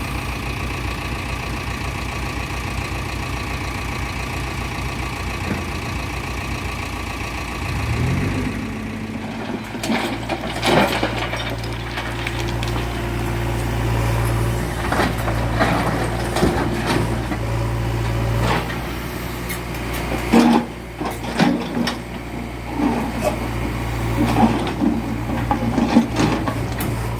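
Backhoe loader's diesel engine idling, then revving up about eight seconds in and running at a higher, steady speed as it works. Repeated clanks and knocks from the working machine come in over the engine.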